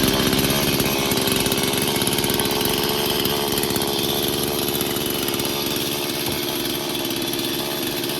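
Stihl MS 170 two-stroke chainsaw running steadily just after a cold start, the owner having started it with the choke. Its steady engine note eases a little in loudness over the seconds.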